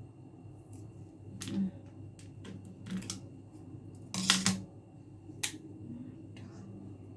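Scissors clicking and cracking on the hard shells of water caltrops (ling kok) as they are pried open: several sharp snaps, the loudest a quick cluster about four seconds in.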